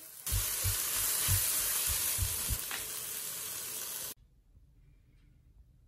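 Vegetable stir fry sizzling in a frying pan as it is stirred, with several low thuds in the first two and a half seconds. The sizzling cuts off suddenly about four seconds in, leaving only faint clicks.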